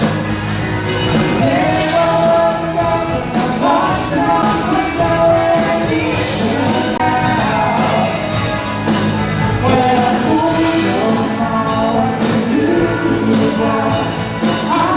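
Rock or pop song with a singer and band playing, a steady drum beat under the vocal line.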